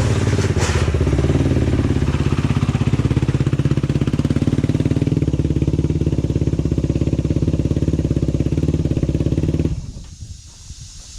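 An ATV engine running steadily at a fast idle, then cutting off abruptly a second or so before the end.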